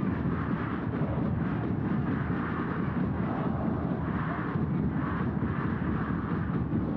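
Football stadium crowd roaring: a dense, steady rumble of many voices with repeated swells.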